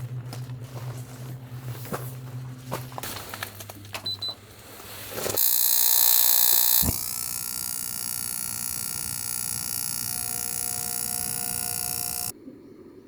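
Scattered clicks and crinkling handling sounds over a low hum, then a loud steady hiss with several steady tones through it that cuts off suddenly near the end.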